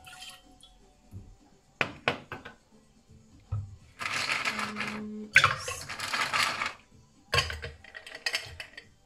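Ice cubes dropped by hand into a stainless steel travel cup used as a cocktail shaker, clattering loudly against the metal in three long rushes in the second half, after a couple of sharp clinks a little before.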